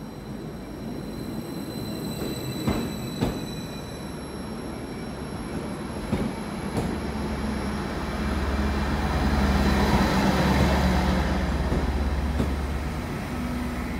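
Greater Anglia Class 755 bi-mode multiple unit rolling slowly past along the platform. Its wheels click twice over rail joints about three seconds in. A low drone swells to its loudest about two-thirds of the way through and then eases off.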